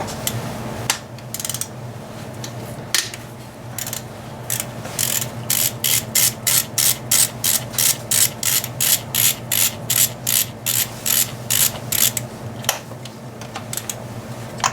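Hand ratchet wrench clicking in quick, even strokes, about three a second, as a fastener on the engine mount is backed off; a few scattered clicks come first, and the run of clicks stops a couple of seconds before the end. A steady low hum runs underneath.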